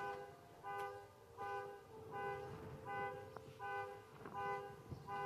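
Electronic alarm beeping over and over with a buzzy tone, a short beep about every three-quarters of a second, seven or eight times.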